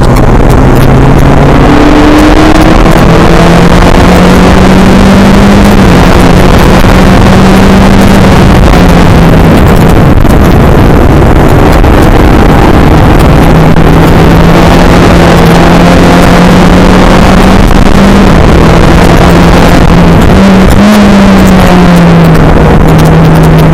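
A Skip Barber formula race car's engine running hard, recorded onboard so loud that it is near clipping, with a thick rush of wind and road noise. The engine pitch climbs through the first two seconds and then holds high. It sags around ten seconds in and gives a short blip and fall about twenty-one seconds in, as the car shifts and lifts through the lap.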